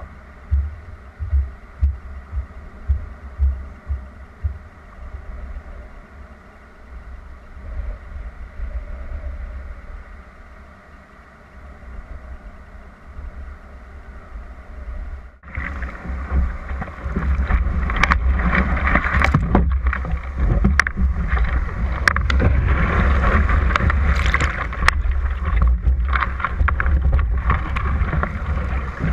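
Wind gusting on the microphone of a bow-mounted camera on a surfski. About halfway through it cuts abruptly to the louder, steady rush of breaking surf and whitewater around the ski, with splashes.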